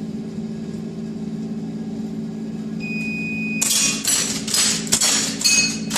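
An electronic shot timer's start beep about three seconds in, followed within a second by a rapid string of airsoft gun shots, roughly two or three a second, with BBs ringing on the steel target plates.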